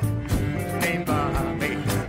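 Background music: a song with a drum beat and instruments.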